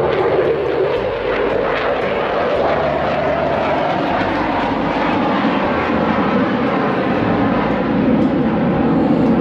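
An aircraft passing overhead: a steady, loud engine noise whose pitch band drifts slowly and builds a little near the end.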